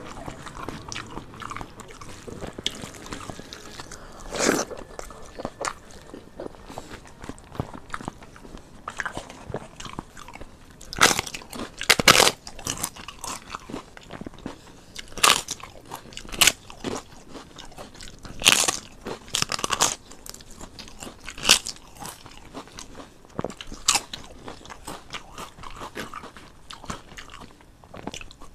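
Close-miked eating with the hand: soft chewing and mouth sounds, broken by a string of sharp, loud crunches as fried papad (pāpad bhaja) is bitten and chewed, about ten in all, most in the middle of the stretch.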